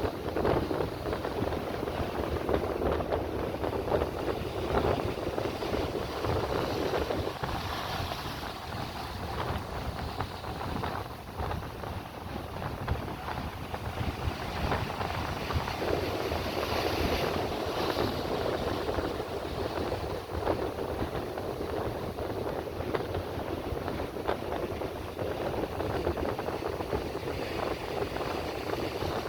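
Sea waves washing onto the shore, swelling and easing every few seconds, with wind buffeting the microphone.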